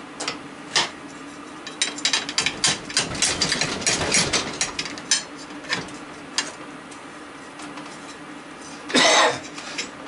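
Clicking and clinking of a hand tool working at the shaft and bearing of a ceiling fan motor clamped in a vise: a couple of clicks at first, then a busy run of metal clicks and knocks for several seconds. A person coughs once near the end.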